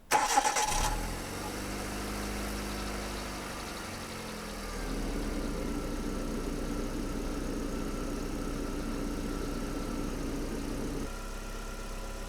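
Hyundai Getz engine starting, then idling steadily with its freshly tensioned alternator belt. About five seconds in, the idle note gets a little louder and stronger, and it changes again near the end.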